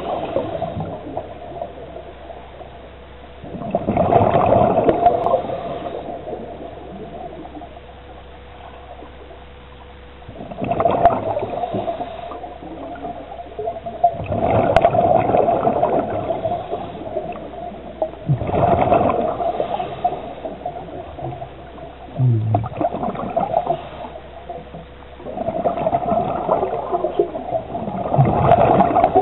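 Scuba diver breathing through a regulator, heard underwater: about six bursts of bubbling exhalation a few seconds apart, over a faint steady hum.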